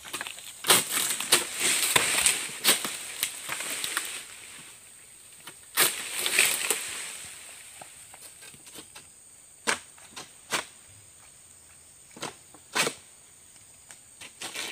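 Oil palm fronds being cut with a long-pole harvesting sickle (egrek): sharp strokes of the blade and rustling of the fronds. The strokes come thick and fast in the first few seconds and again about six seconds in, then thin out to scattered single knocks.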